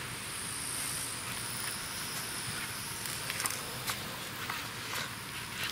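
Steady high-pitched chirring of insects, crickets or similar, with a few faint clicks or taps.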